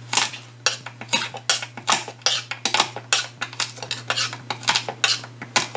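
Kitchen knife crushing garlic cloves on a wooden cutting board: a run of sharp knocks, about three a second.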